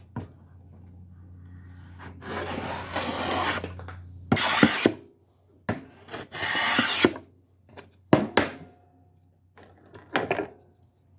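Spokeshave shaving strokes along square walnut stock, cutting the corners off to round a dowel: about five scraping strokes, the first the longest, with light knocks of the tool between them.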